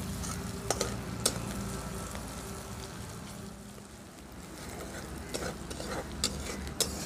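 Sliced onion, dried red chillies and cumin sizzling in hot oil in a steel kadai, stirred with a metal spatula that scrapes and clinks against the pan now and then.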